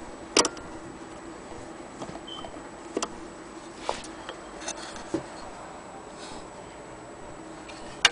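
Scattered sharp clicks and light knocks from hands handling an antique Willcox & Gibbs sewing machine's metal parts, the loudest about half a second in and another near the end, with a few softer ones in between.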